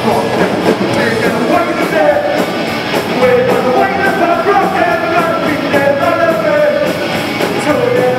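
Punk band playing live: distorted electric guitars, bass and drums under a lead singer's held, shouted vocal lines.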